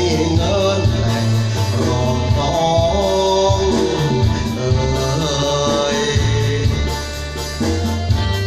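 A man sings a Thai song into a handheld microphone over backing music with a heavy bass line. Near the end his voice drops out while the backing music carries on.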